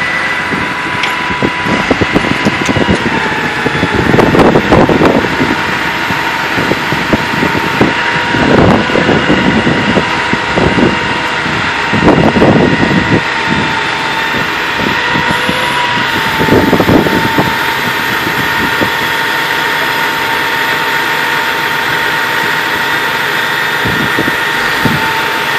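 Utility bucket truck engine idling with a steady high whine, and louder surges every few seconds.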